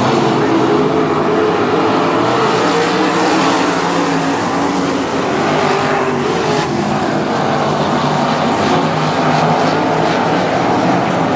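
Several sprint car engines racing together, a loud steady mix of engine notes whose pitches waver up and down as the cars circle the track.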